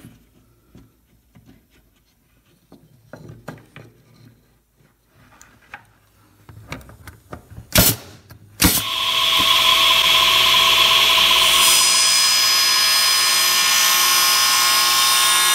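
Light knocks and clicks of small wooden pieces being handled in a jig, with two sharp knocks a little past halfway. Then a radial arm saw's motor comes on and runs steadily with a high whine, spinning its blade to trim oak pocket-hole plugs.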